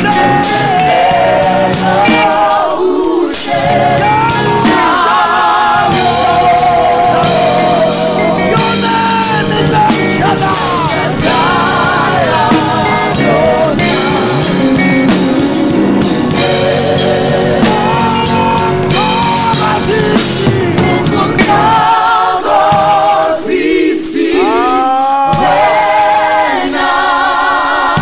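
Live gospel worship singing: a group of singers on microphones, holding notes with vibrato, over band accompaniment with drums.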